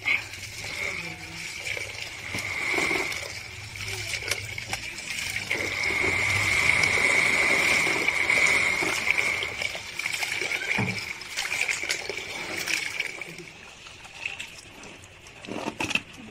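Water running from a tap into an aluminium pot while hands swish and rub rice in it, washing the rice. The splashing grows loudest midway and eases off near the end.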